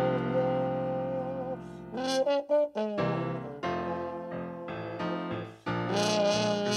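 Instrumental background music: long held notes that change in steps, with a few short, clipped notes about two to three seconds in.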